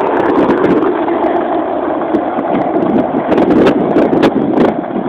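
Skateboard wheels rolling fast on asphalt with a rider sitting low on the board, a loud steady rumble, with a few sharp clicks between about three and a half and four and a half seconds in.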